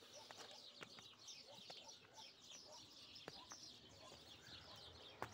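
A faint chorus of many small birds, with short high chirps packed close together and repeating throughout. A few sharp clicks cut through it.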